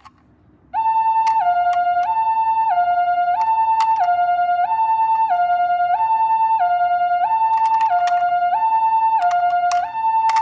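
Two-tone ambulance siren of the Japanese 'pee-po' kind, alternating evenly between a high and a low tone about once every 1.3 s. It starts under a second in, with a few sharp clicks and a rattle over it.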